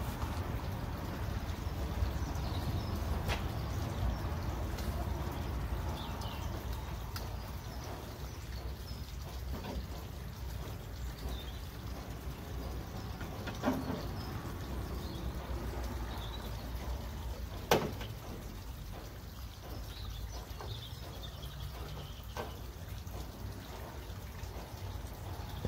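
Quiet background with a steady low rumble and faint high chirps, broken by two sharp knocks a few seconds apart past the middle as a trim strip is handled and pressed onto a van's rear door frame.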